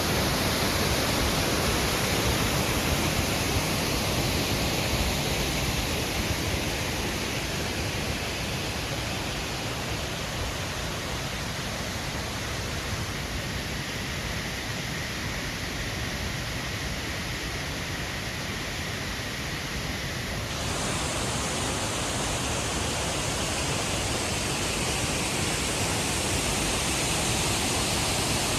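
Waterfall: a steady, dense rush of falling water. It eases slightly in the middle, then shifts suddenly in tone and grows a little louder about twenty seconds in.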